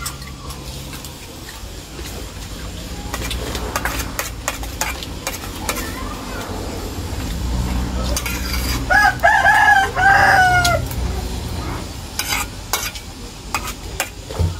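A rooster crows once, about nine seconds in, a stepped call of about two seconds that ends on a falling note. Spoons clink on metal bowls and plates now and then.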